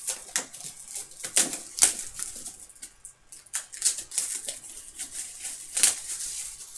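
Plastic shrink-wrap crinkling and tearing as it is pulled off a sealed trading card box, in quick irregular rustles with a few sharper crackles.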